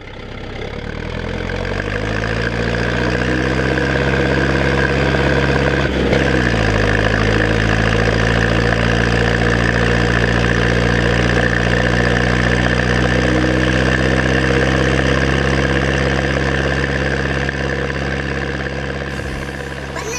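Zetor 7245 tractor's four-cylinder diesel engine running. It rises in pitch over the first few seconds, dips about six seconds in, then runs steadily.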